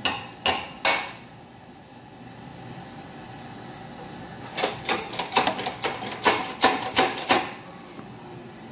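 Shop press being worked to push the bearing out of a water pump housing: metallic clicks, three at the start and then a run of about a dozen at roughly four a second from the middle to near the end.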